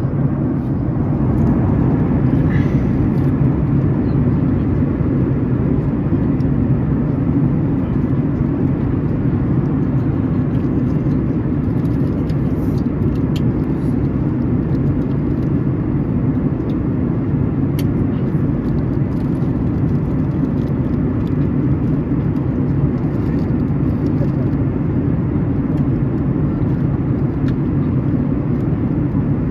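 Steady low drone inside the cabin of a Boeing 737-900ER in flight, the CFM56-7B engine and airflow noise heard from a window seat beside the engine.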